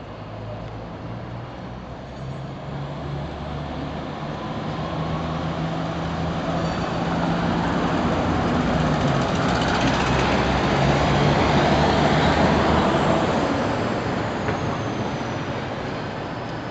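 Diesel engine of a Karosa city bus pulling away and passing close, growing louder to a peak about two-thirds of the way through, then fading. Near the end a Škoda 13T low-floor tram rolls in over the rails.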